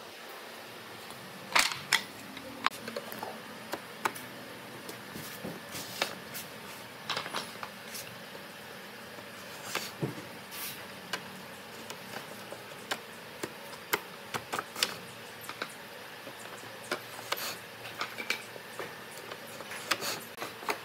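Short wooden boards handled and set by hand into a bench's seat frame: scattered light wooden knocks and clacks at irregular intervals, the sharpest a couple of seconds in and again about halfway, over a steady faint hiss.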